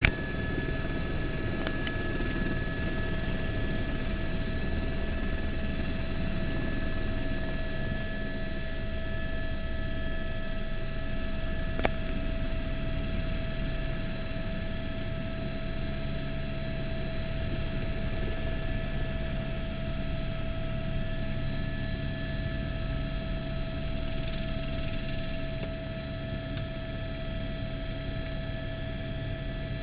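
Turbine helicopter running on the ground with its rotor turning, heard from inside the cabin: a steady turbine whine over a low rumble. A single click about twelve seconds in.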